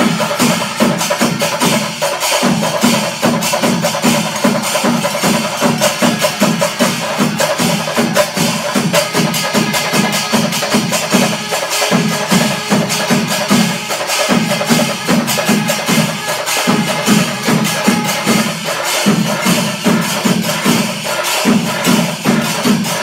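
Kerala panchari melam temple ensemble playing in its fifth kaalam (tempo stage): massed chenda drums in a fast, dense rhythm, with ilathalam cymbals, kombu horns and kuzhal. A low held tone breaks off and restarts every two to three seconds.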